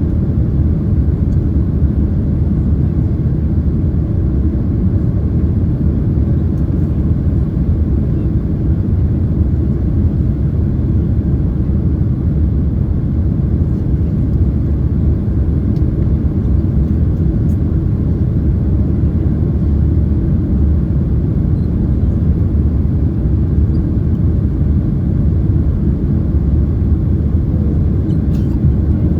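Steady low roar inside the cabin of a Boeing 767-300ER airliner in flight: engine and airflow noise, unchanging throughout, with a few faint ticks.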